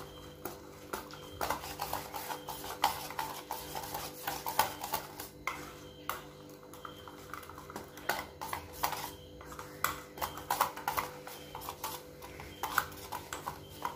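Wire whisk beating a runny wheat-flour and egg batter in a stainless steel bowl: quick, irregular clinks and scrapes of the wires against the metal, mixing the batter smooth.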